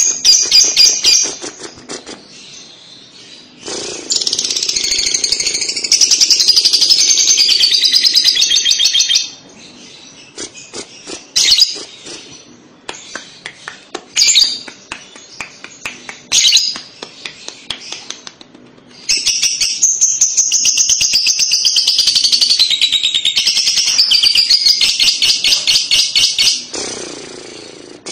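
Fischer's lovebird singing its long, rapid, high chattering song (the 'ngekek' or 'kekekan'). There are two long bouts of several seconds each, about four seconds in and again near twenty seconds, with short sharp chirps and ticks in between.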